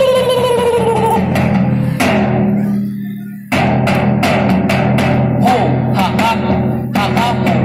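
Folk dance music: a gliding, falling tone fades out over the first three seconds, then a new drum-led tune starts abruptly about three and a half seconds in, with a steady drum beat under a wavering melody.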